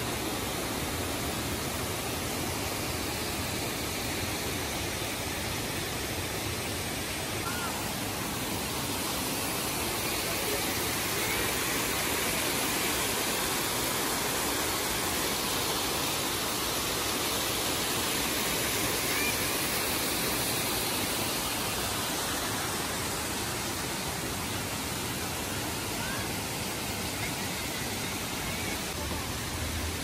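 Small jungle waterfall pouring over rock into a pool: a steady, even rush of falling water that swells slightly in the middle.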